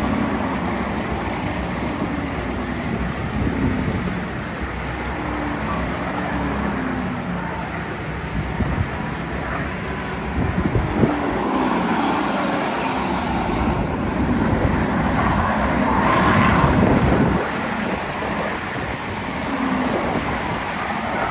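A pack of Crown Victoria race cars running laps of an oval, their V8 engines mixing into a steady drone with engine notes rising and falling as cars pass, and some wind buffeting the microphone.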